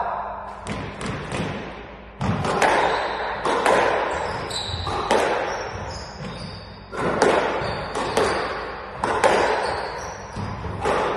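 Squash rally: the ball cracking off rackets and the court walls about once a second, each hit followed by a ringing echo in the enclosed court, with brief high squeaks in between.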